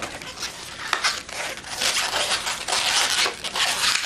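Latex twisting balloons handled and rubbed by hand, an irregular run of rustling, crackling and rubbing sounds.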